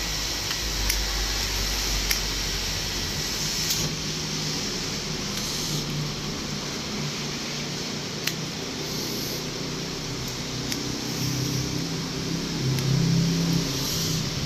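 Pruning scissors snipping grapevine shoots: a handful of single sharp clicks a second or more apart. Under them runs a steady background hiss and low hum, which grows louder over the last few seconds.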